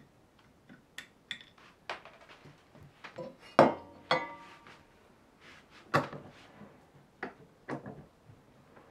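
Scattered clinks and knocks of metal hand tools and a steel bolt being handled on a workbench; the loudest, about three and a half seconds in, rings briefly.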